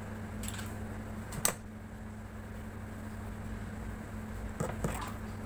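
Steady low hum in a small room, with a few soft clicks and rustles as hands handle hair. There is one sharper click about a second and a half in and a short cluster of clicks near the end.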